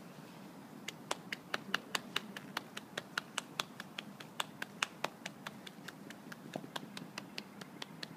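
Fingers snapping in a quick, uneven series of sharp clicks, about four or five a second, starting about a second in and spacing out a little toward the end.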